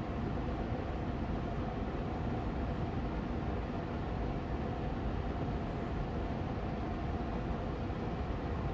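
Air purifier fan running steadily on medium speed: an even whooshing hum of moving air with a faint steady tone over it.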